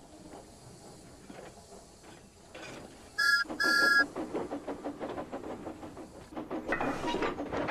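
Faint clatter of railway wagons rolling, then two short steam whistle toots about three seconds in, followed by a louder, busy clatter of wagon wheels and couplings.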